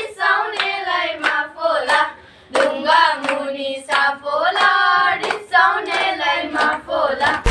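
A group of girls singing a Bhailo song together, with hand clapping in time at about two claps a second.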